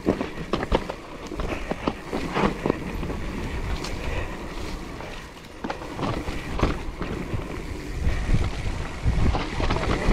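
Mountain bike riding down a dirt singletrack: steady tyre noise on the trail with many short knocks and rattles from the bike over bumps, and wind rumbling on the microphone.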